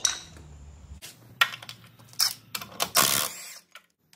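A cordless impact wrench is run in several short bursts on the truck's wheel lug nuts.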